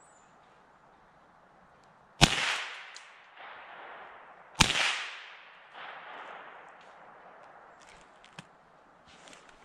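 Two rifle shots from a scoped hunting rifle, about two and a half seconds apart, each cracking sharply and then echoing off through the woods.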